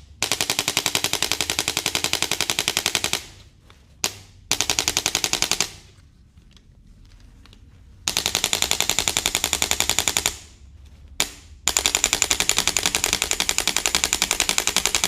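A handheld electric percussion tool, of the kind used in chiropractic treatment, hammering rapidly in four runs of about one to four seconds each, with a single click before some runs.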